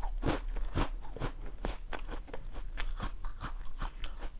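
Close-miked chewing of a mouthful of yellow watermelon: a rapid, irregular run of crisp crunches, several a second.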